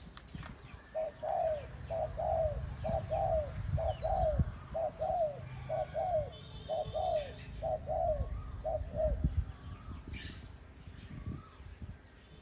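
Spotted dove, a caged decoy bird, cooing a regular series of about ten short two-part coos, a little under a second apart, that stops after about nine seconds. Faint chirps of other small birds and a low rumble run underneath.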